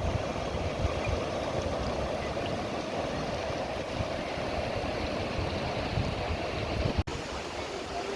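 Sea surf washing in steadily, with wind buffeting the microphone. The sound breaks off for an instant about seven seconds in.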